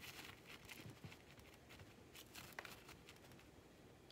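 Faint, scattered rustling and scratching of potting mix as gloved fingers press and work it around succulents in a pot.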